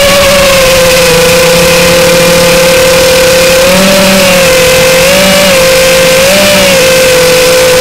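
Furibee X215 Pro FPV quadcopter's motors and propellers whining loudly, heard from a camera mounted on the drone's frame. The steady buzzing tone rises briefly in pitch three times, at about four, five and six seconds in.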